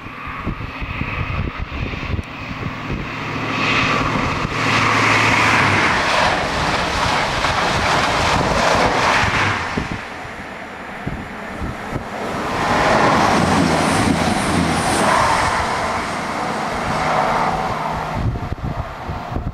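High Speed Train with Class 43 diesel power cars passing at speed: a low diesel engine note, then a loud rushing of wheels and air that swells twice, about four seconds in and again about thirteen seconds in, with a brief lull between.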